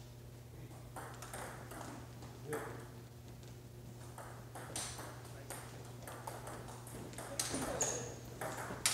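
Table tennis balls clicking off bats and tables during rallies: an irregular string of sharp clicks, some close and some farther off.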